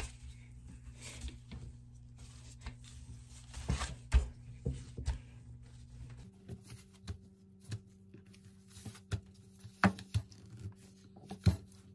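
Wooden rolling pin rolling over and knocking on bread dough on a plastic cutting board, with hands pressing and patting the dough flat: irregular soft knocks and thumps.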